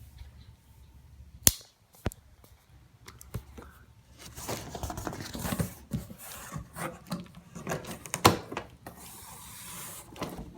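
Cardboard shipping box being opened by hand, its packing tape being cut and pulled: two sharp clicks, then several seconds of scraping and rustling with knocks, and a steady hiss near the end.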